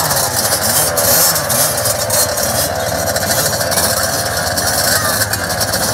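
A row of small two-stroke motocross minibike engines, mostly KTMs, idling and blipping together: a dense, steady buzz of many engines at once, wavering up and down.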